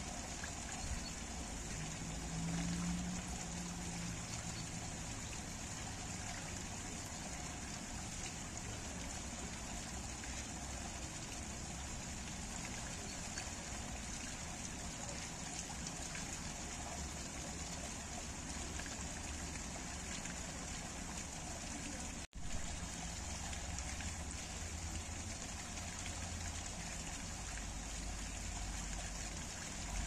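Water pouring steadily from a spout in a stone wall, splashing onto a heap of rocks and trickling away along a gutter. The sound cuts out for an instant about two-thirds of the way through.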